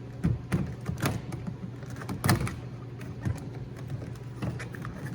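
Plastic door trim being pried and popped off a truck's interior door panel with a plastic trim removal tool: a string of irregular sharp plastic clicks and knocks, the loudest a little over two seconds in, over a steady low hum.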